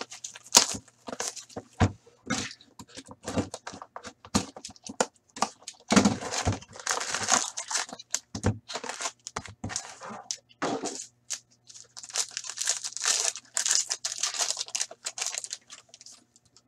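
Upper Deck Artifacts hockey card packs being torn open by hand: foil wrappers ripping and crinkling amid sharp clicks and rustles of cardboard and packs being handled. There are longer stretches of tearing about six seconds in and again from about twelve to fifteen seconds, over a faint steady low hum.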